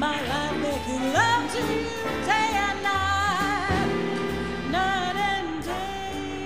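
Background music from a song recording: a lead melody line over a repeating bass line.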